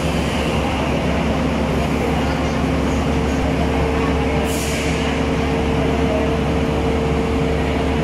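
Diesel train idling at a station platform, a steady low drone with a humming tone, and a short hiss about halfway through.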